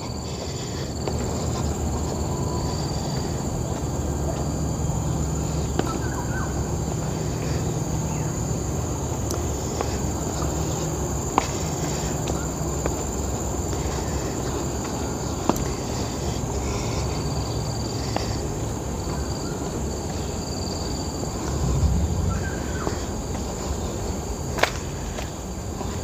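A steady high-pitched chorus of insects in tropical forest, over a low rumble, with a few sharp clicks.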